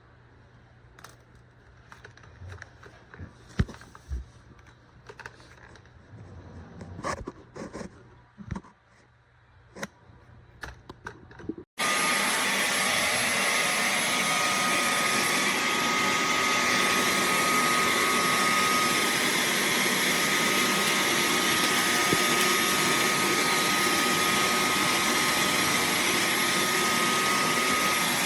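Faint clicks and handling knocks, then about twelve seconds in the Dyson V15 Detect Plus cordless stick vacuum switches on abruptly. It runs loud and steady with a constant high whine until it cuts off at the very end.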